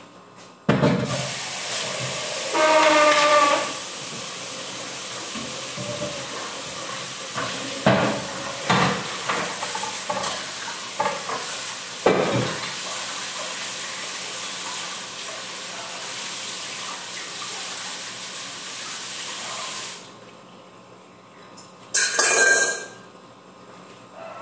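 Tap water running into a stainless steel mixing bowl as it is rinsed at the sink, with a few knocks of the bowl against the sink. The water stops about 20 seconds in, and a short loud noise follows a couple of seconds later.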